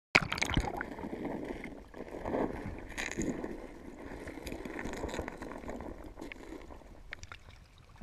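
Water sloshing and splashing around an action camera at the waterline of an inflatable stand-up paddleboard. It starts abruptly with a knock, is unsteady and loudest in the first few seconds, then eases off.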